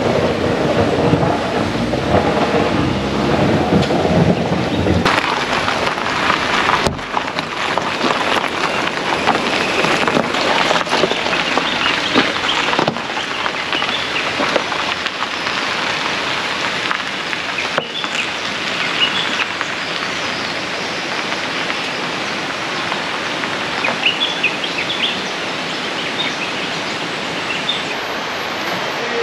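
Steady rushing water noise, fuller and heavier in the low range for about the first five seconds, then an even rush. A few faint short high chirps come through in the second half.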